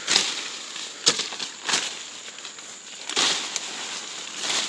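Leafy undergrowth and brush swishing and crackling as a person moves through it swinging a machete, with five sharp swishes at irregular intervals and rustling in between.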